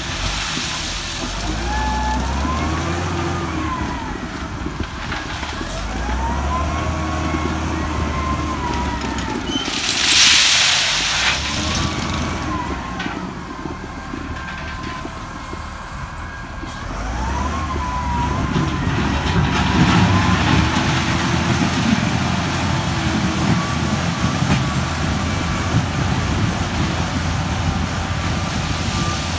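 LiuGong 836 wheel loader's diesel engine revving up and falling back again and again as the machine works a heap of crushed stone. A short, loud rushing noise comes about ten seconds in.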